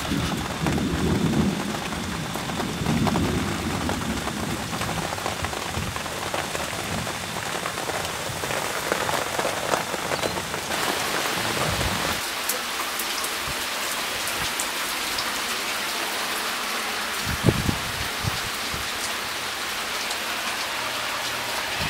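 Heavy rain falling steadily, with a low rumble of thunder in the first few seconds. The rain hiss brightens about halfway through, and there is one sharp tap near the end.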